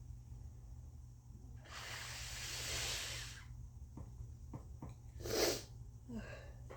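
A person with a head cold blowing a congested nose hard for nearly two seconds, then, a couple of seconds later, one short sharp explosive burst of breath, the loudest sound here.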